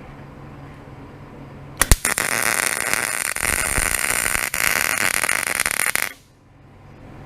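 Electric welder laying a bead: the arc strikes with a sharp crack about two seconds in, then about four seconds of steady sizzling crackle that cuts off suddenly. A low hum runs underneath before and after the weld.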